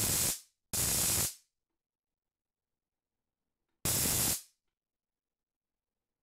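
Three short bursts of harsh electrical sparking noise from a spark gap on a home-wound high-voltage coil, each about half a second long, starting abruptly and dying away quickly: two in the first second and one about four seconds in.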